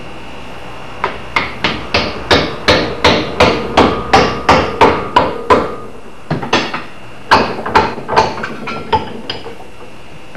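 Hammer blows driving a wooden wedge into the top of an axe handle, spreading the wood to lock the axe head on. Sharp, separate strikes come about three a second, with a short pause a little past halfway before a second run.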